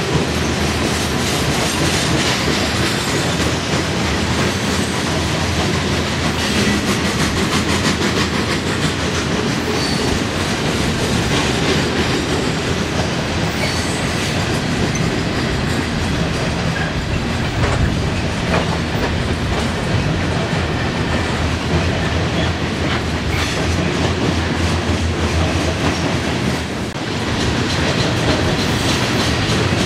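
Freight train's open-top hopper cars rolling past, steel wheels clacking over the rail joints in a steady, loud rumble of rolling noise.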